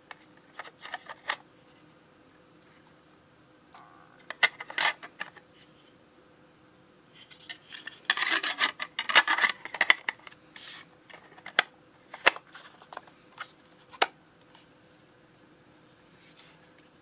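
Plastic clicks, snaps and rubbing as the casing and lid of an HPRT Qutie mini thermal label printer are handled. The clicks come scattered, with a dense run of clicking and rubbing about eight to ten seconds in.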